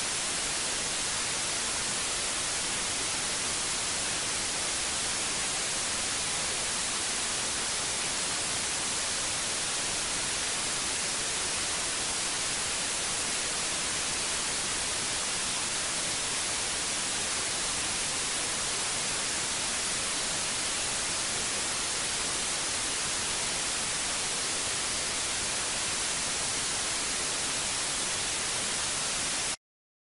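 Water from a spring fountain's pipe spout falling into a full stone trough, a steady splashing hiss. It cuts off suddenly near the end.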